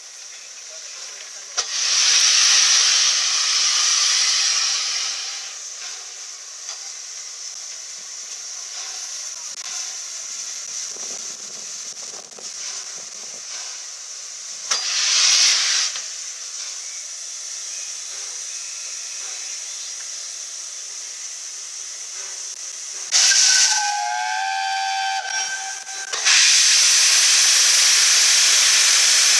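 Peppercorn A1 Pacific steam locomotive 60163 Tornado letting off steam: loud bursts of hissing about two seconds in and again around fifteen seconds, a short whistle around twenty-three seconds, then a loud steady hiss of steam from about twenty-six seconds as steam pours out at the front end.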